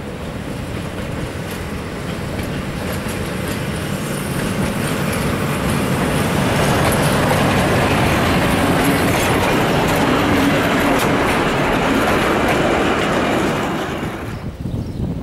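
Ex-South Australian Railways Brill railcar No. 60 and its trailer car running past on the track. The engine and wheel noise grows louder as it approaches, is loudest as it passes close by, and then cuts off abruptly about a second before the end.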